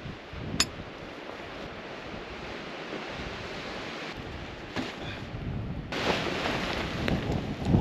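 Storm wind blowing steadily and growing louder about six seconds in, buffeting the microphone. There is a sharp click under a second in and a few low thumps near the end.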